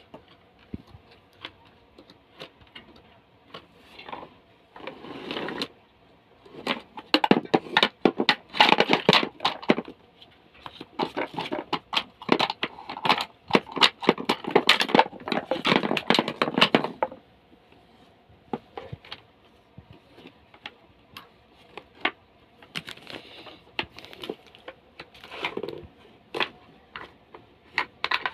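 Small wooden blocks and the wooden shape-sorter cube being handled: rapid clicks, knocks and scrapes of wood on wood, busiest through the middle stretch and sparser near the end.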